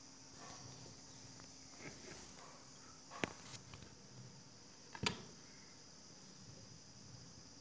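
Two young kittens play-fighting on a pile of clothing: faint rustling of cloth, with two sharp clicks about three and five seconds in, the second the louder, over a steady high hiss.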